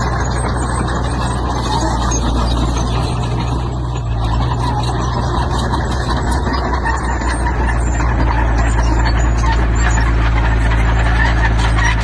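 Heavy construction machine's diesel engine running steadily under work, with a dense clatter and rumble over its low drone, growing a little louder in the second half.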